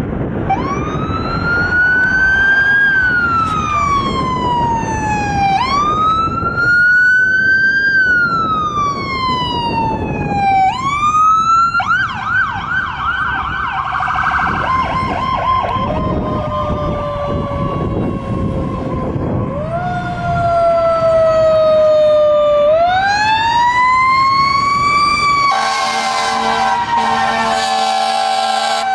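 Fire apparatus electronic sirens: a wail rising and falling in slow sweeps of about five seconds, switching briefly to a fast yelp about twelve seconds in, then wailing again. Near the end a fire truck's air horns sound in a steady blast over the siren, with engine rumble beneath.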